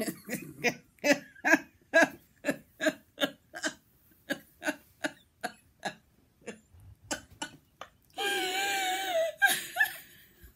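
A woman laughing hard: a long run of short laugh pulses, about three a second, dying away, then a drawn-out high-pitched laugh about eight seconds in.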